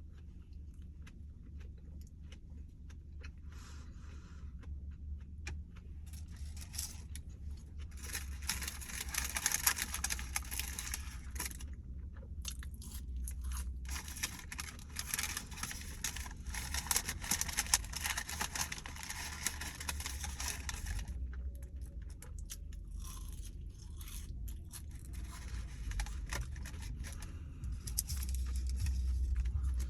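Close-up eating sounds of fast food: chewing and crunching in stretches of several seconds, over a steady low hum.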